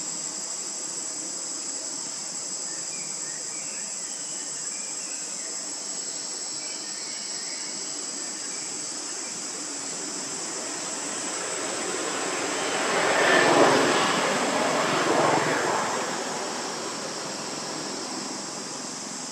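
Steady high-pitched drone of insects, with a few faint chirps early on. About two-thirds of the way in, a rushing noise of something passing swells up, peaks and fades over a few seconds.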